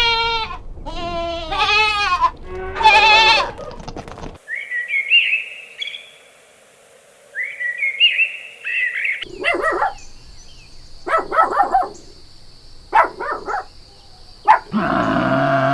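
A run of animal calls: several loud, wavering bleats at first, then high chirping for a few seconds, then a string of short, sharp calls, and a deep roar starting near the end.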